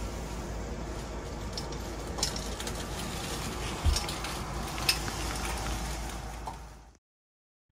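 Indoor background noise: a steady hiss with a few light clicks and clinks scattered through it, fading out near the end.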